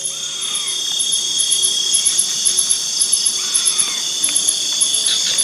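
Night forest chorus of insects: several steady high-pitched trills with a very high chirp pulsing about twice a second. Now and then a faint call rises and falls beneath it.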